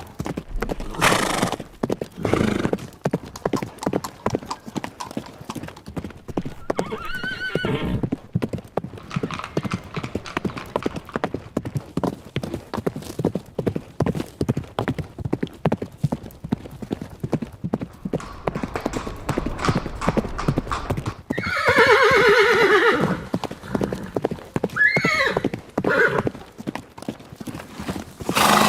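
Hooves of running horses clattering rapidly and continuously, with horses neighing several times: once at about seven seconds, a long, loud whinny a little past twenty seconds, and a shorter one a few seconds later.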